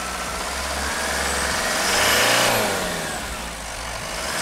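Isuzu 4JH1 3.0-litre turbo diesel engine of an Isuzu NLR77 truck revved with no load. The pitch climbs to a peak about two seconds in, with a high turbo whistle, then falls back toward idle. A second rev begins just before the end.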